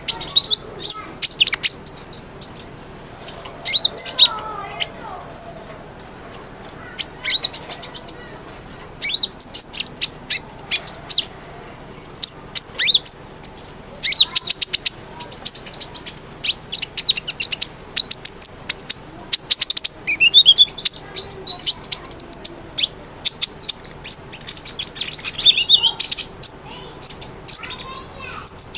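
Van Hasselt's sunbird (the 'kolibri ninja' or 'konin') singing: very high, rapid chirps and short trills in bursts with brief pauses, some notes sweeping down in pitch.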